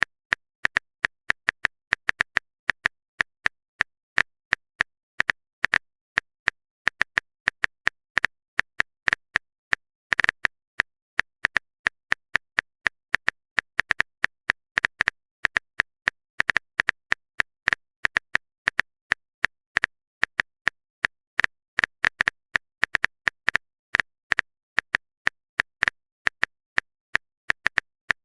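Short, sharp clicks of a phone-keyboard typing sound effect, several a second at an uneven rhythm, with silence between them.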